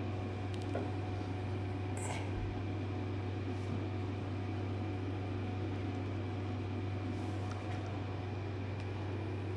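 Steady hum of a running machine, such as a shop fan, with a low drone and a few steady tones in it. A couple of faint light taps come about two seconds in as wooden parts are handled.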